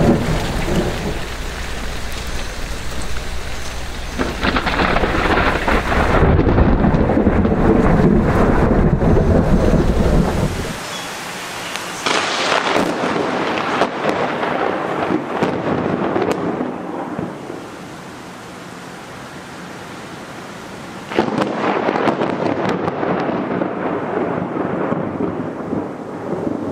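Thunderstorm: rain falling with thunder. A long, heavy low thunder rumble dies away about eleven seconds in. Sharper thunder claps break out about twelve and twenty-one seconds in over the continuing rain.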